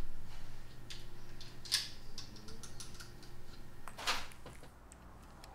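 Light, irregular clicks of metal type sorts being picked from a wooden type case and set one by one into a composing stick, with two louder clicks partway through, growing fainter near the end.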